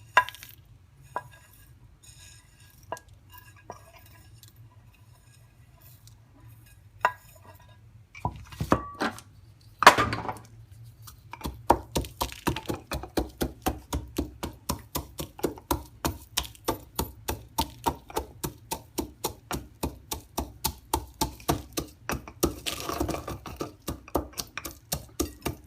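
Whole spices being crushed with a pestle in a mortar: scattered light clinks and knocks at first, then, about eleven seconds in, a steady pounding of roughly three strikes a second.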